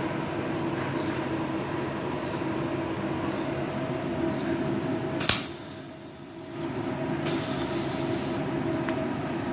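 A TA501i 500-ampere MIG/MAG welding machine, switched on and idling, with a steady hum. About five seconds in there is a sharp click, then a high hiss in two short spells.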